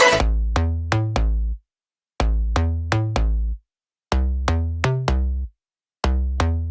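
Background electronic music: short phrases of plucked notes over a bass line, each cut off by a brief total silence about every two seconds.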